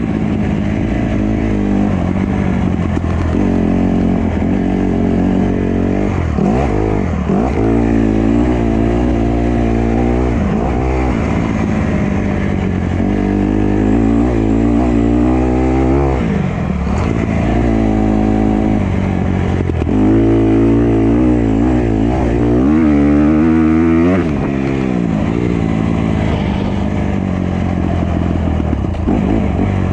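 Honda CRF150R dirt bike's four-stroke single-cylinder engine being ridden, its revs rising and falling again and again as the throttle is worked.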